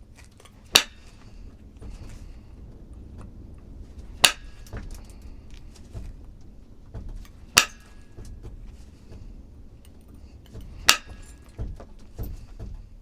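Flintknapping: four sharp, glassy percussion strikes on a stone piece, about three seconds apart, with a few lighter knocks and taps near the end. The strikes are taking flakes off to work out a hinge fracture.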